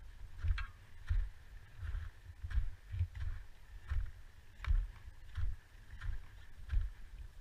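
A climber's footsteps crunching up a snow slope, about two steps a second, each step jolting the body-mounted camera with a low thump.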